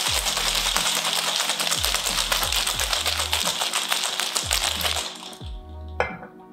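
Ice cubes rattling fast and hard inside a cobbler cocktail shaker during a vigorous shake, stopping about five seconds in. A single knock follows about a second later.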